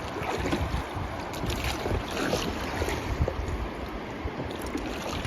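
Wind buffeting the microphone in uneven low rumbles over a steady rush of river water running across a shoal.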